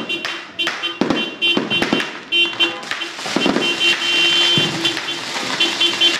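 Fireworks going off: a run of irregular sharp bangs and pops, over a high tone that comes and goes.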